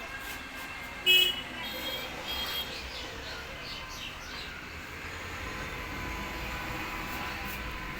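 Street traffic noise, with one short, loud horn toot about a second in and a few fainter toots just after.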